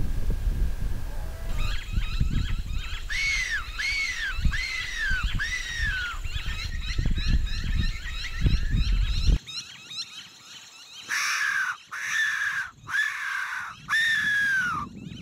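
Silva fox whistle blown as a predator call in short squeals that rise and fall. There are four in quick succession, then after a pause four longer ones near the end, imitating a prey animal in distress to draw in a feral cat. Wind rumbles on the microphone for about the first nine seconds and cuts off suddenly.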